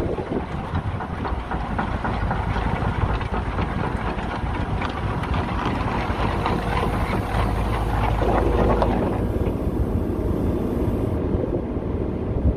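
Diesel engine of a Case CX225SR zero-tail-swing excavator running steadily, with wind noise on the microphone strongest about eight seconds in.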